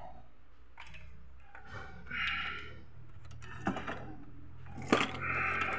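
Workbench handling sounds over a low steady hum: brief rustling twice, and two sharp clicks a little over a second apart, as a capacitor and multimeter probes are handled.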